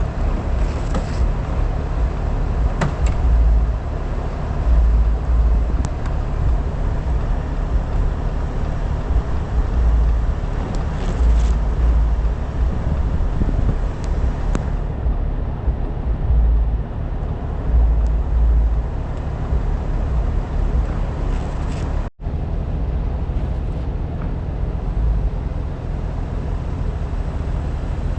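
Jeep engine running with a steady low rumble, with some wind noise and a few faint clicks. The sound cuts out briefly about three quarters of the way through.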